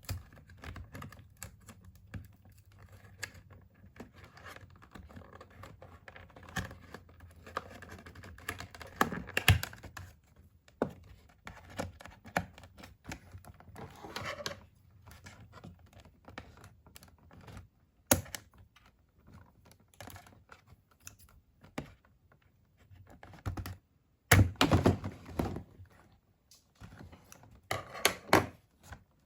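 Doll packaging being handled and opened by hand: scattered clicks and taps, with louder bursts of rustling and tearing about nine seconds in, around twenty-four seconds, and again near the end.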